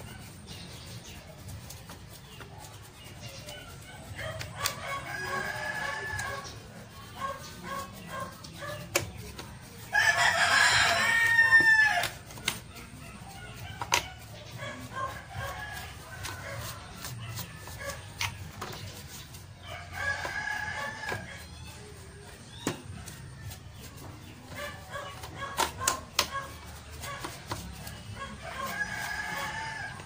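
A rooster crowing four times: one long, loud crow about ten seconds in, and quieter crows near five, twenty and thirty seconds. Scattered faint clicks in between.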